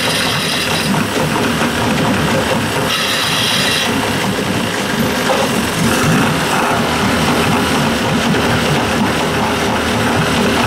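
Old two-stroke outboard motor running steadily. Short hisses from an aerosol can spraying lubricant or fogging oil cut in at the start and about three seconds in.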